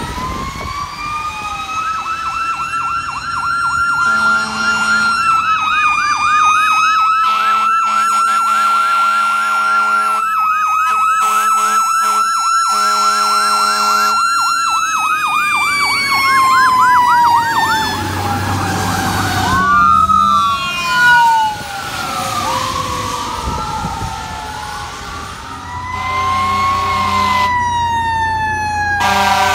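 E-One fire engines' sirens: an electronic siren winds up into a fast yelp, with several long air horn blasts over it. Past the middle the siren slides down in pitch. Near the end a second siren and air horn start up.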